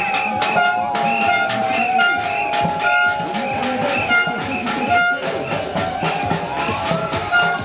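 Music with a steady, fast beat and a sliding melody over it.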